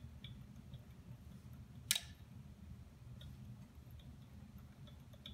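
Magnetic stirrer running with a low hum and faint, irregular light ticking, with one sharp click about two seconds in.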